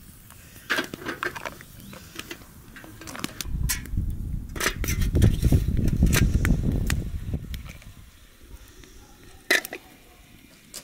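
A metal kettle and teapot lids being handled, with a few light clinks, then a low rumble for several seconds in the middle. Near the end comes a single sharp clink as a glass teapot is set on top of the soot-blackened kettle.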